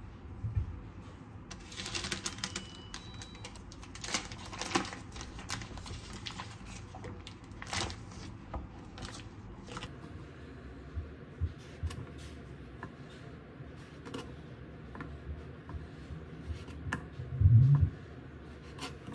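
Kitchen knife slicing kimbap ham into strips on an end-grain wooden cutting board: irregular sharp taps of the blade against the wood. A dense run of clicks and rustles comes in the first few seconds, and a louder dull thump comes near the end.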